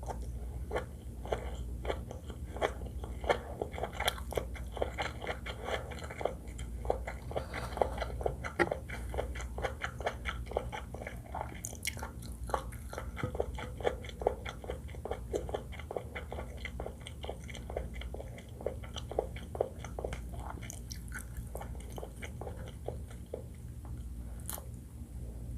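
Close-miked chewing of seafood fried rice: a quick, dense run of wet crunches and mouth clicks, thinning out over the last few seconds.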